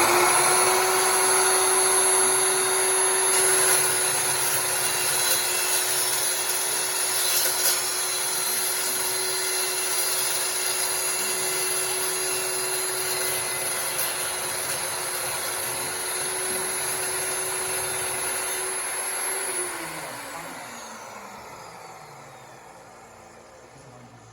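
DeWalt metal-cutting chop saw with a toothed blade running with a steady whine as it cuts through metal. About twenty seconds in the motor is switched off and the blade winds down, its pitch falling and the sound fading.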